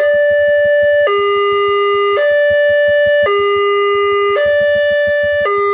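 Electronic warning alarm of a railway level crossing's Wantech signal, sounding while the red lamps flash. It is a loud two-tone call, alternating between a higher and a lower tone about once a second over a fast pulsing beat, which means the crossing is active and a train is approaching.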